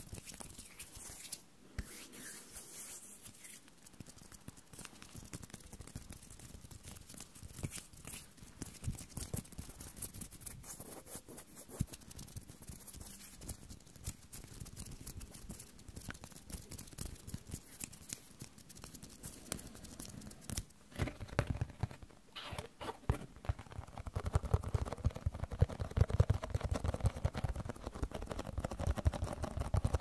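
Close-miked ASMR handling sounds: a dense run of light scratching and tapping clicks on small objects. In the last several seconds it turns louder, with heavier rubbing and thuds.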